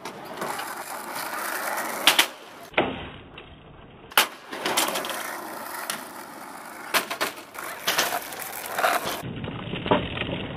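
Skateboard wheels rolling on asphalt, broken by several sharp clacks of the board's tail popping and the deck landing during ollie and shove-it style tricks.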